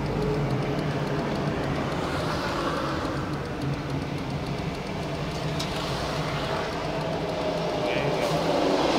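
Car engine and road noise, a steady hum, as the car rolls slowly through city traffic and comes to a stop.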